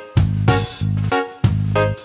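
Upbeat background music with a steady, bouncing rhythm of repeated chords over strong bass notes.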